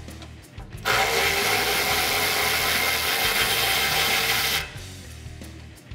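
Cordless power tool running for nearly four seconds with a steady whine, spinning out a rear exhaust hanger bolt with a 13 mm socket. Background music plays underneath.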